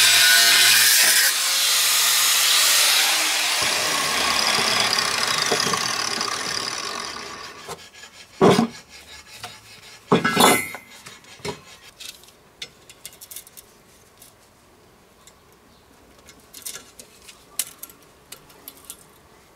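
A power tool cutting, then switched off about a second in and winding down over several seconds with a falling whine. Then a few sharp knocks and clatters, the loudest two about eight and a half and ten and a half seconds in, followed by light scattered clicks.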